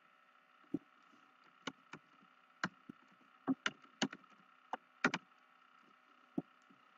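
Computer keyboard being typed on: about a dozen separate key clicks at an uneven pace as an email address is entered, over a faint steady hum.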